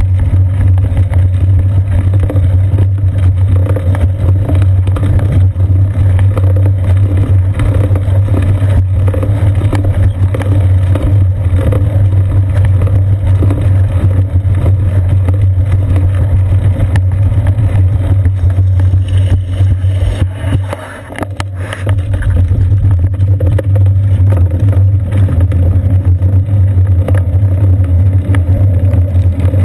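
Steady, loud low rumble picked up by a GoPro Hero 2 mounted on a bicycle's seat post while riding over wet pavement: road vibration and wind on the camera. It dips briefly about two-thirds of the way through.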